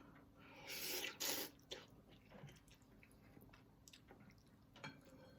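Close-up eating sounds: two short wet, noisy bursts about a second in, then faint chewing clicks.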